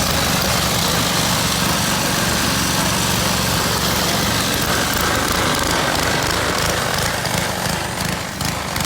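Riding lawn mower engines running steadily, small single-cylinder engines with a buzzing drone; over the last couple of seconds the sound turns choppy and uneven.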